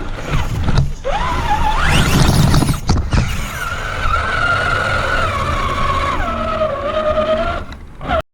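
Brushed electric motor and gearbox of a Traxxas Summit RC truck whining under throttle. The pitch climbs steeply about a second in, holds steady, then drops to a lower steady pitch about six seconds in.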